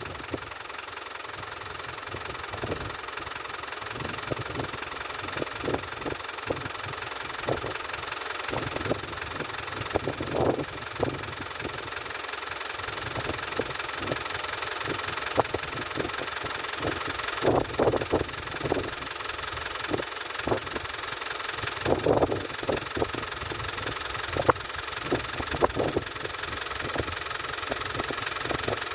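An off-road 4x4's engine idling steadily, with short, uneven bumps coming through it every second or so.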